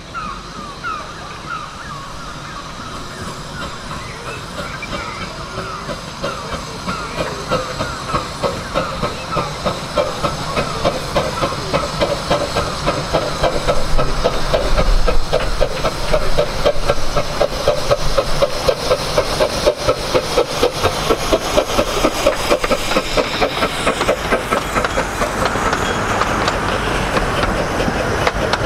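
A Romney, Hythe & Dymchurch Railway 15-inch-gauge steam locomotive approaches hauling its train, its exhaust beating in a regular rhythm that grows louder as it nears. In the last few seconds its carriages roll past with the clatter of wheels on the rail joints.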